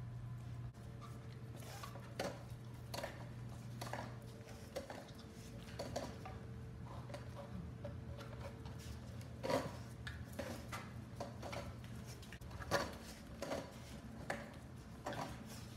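Irregular clicking and tapping of a French bulldog's claws on a tile floor as it scrambles around a longboard, with two louder knocks in the second half. A steady low hum runs underneath.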